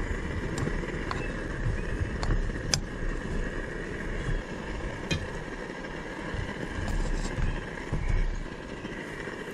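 T-bone steak and champ sizzling in a frying pan on a portable gas stove, with a few light clinks of a fork and spoon against the pan. A low, uneven rumble of wind on the microphone runs underneath.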